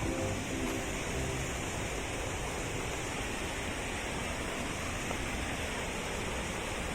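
Steady rush of a waterfall's falling water, an even hiss with no breaks.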